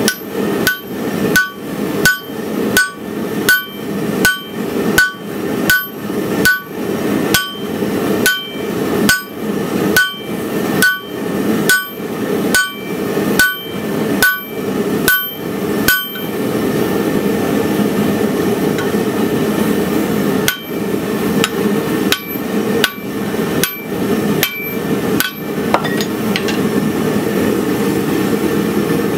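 Hand hammer striking a punch driven into a hot feather Damascus hatchet billet on the anvil, punching the hatchet's eye. There is an even run of about 25 blows, roughly one and a half a second, each with a short metallic ring. After a pause of about four seconds comes a second, shorter run of about eight blows. A steady rushing noise from the lit forge runs underneath.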